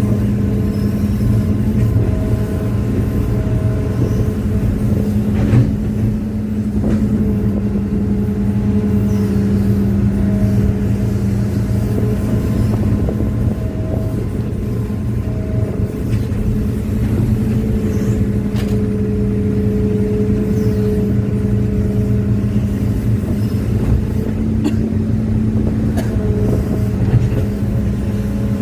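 Hitachi excavator's diesel engine running steadily, with a few sharp knocks now and then.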